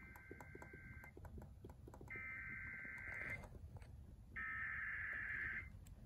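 Emergency Alert System SAME header played over a radio: three bursts of buzzy two-tone digital data, each about a second long and about a second apart, the coded header of a flash flood warning.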